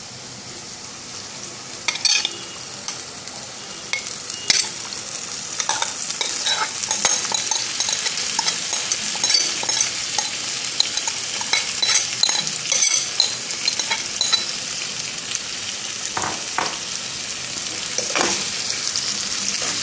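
Marinated chicken pieces going into hot oil and fried onions in a kadai: frying sizzle that swells about two seconds in and keeps going, with a steel spoon scraping and knocking against the bowl and pan now and then.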